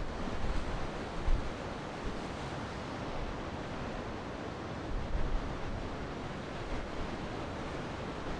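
Rough surf breaking and washing in steadily, mixed with strong wind that buffets the microphone with low rumbles about a second in and again around five seconds.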